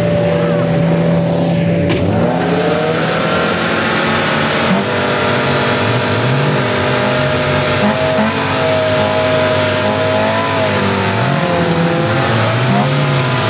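Suzuki Jimny off-roader's engine revving under load in mud, its pitch rising and falling again and again.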